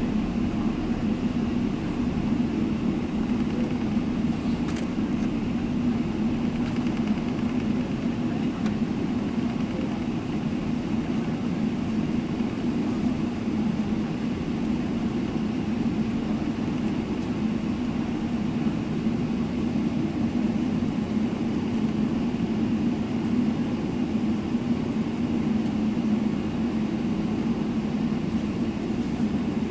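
Steady cabin hum inside a Boeing 777-300ER taxiing, its GE90 engines at low taxi thrust, with a constant deep drone and no build-up to take-off power.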